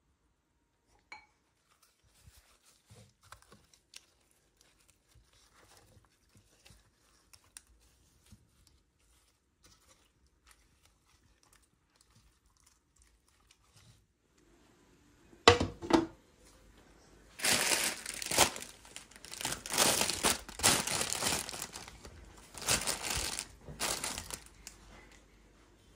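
Plastic bag crinkling and rustling in repeated loud bursts through the second half, as fresh herbs are handled in it, after a single sharp knock about halfway through. Before that there are only faint, soft handling clicks.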